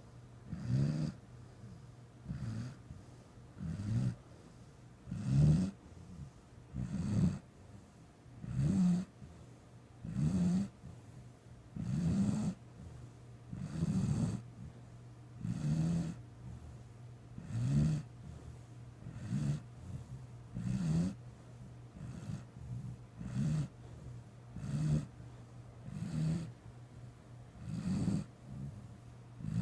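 Steady, rhythmic snoring: a low snore about every one and a half to two seconds, each about half a second long, keeping an even pace throughout.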